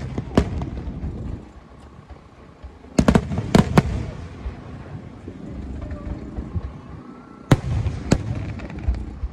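Fireworks going off in sharp bangs: a couple at the start, a rapid cluster about three seconds in, and two more near the end, with a low rumble between.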